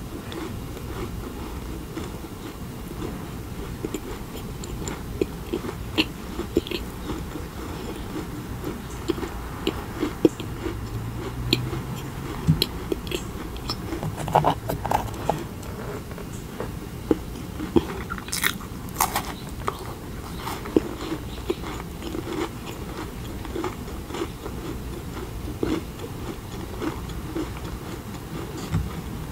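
Close-miked chewing and wet mouth clicks of a person eating, with a crisp bite into a macaron shell about two-thirds of the way through.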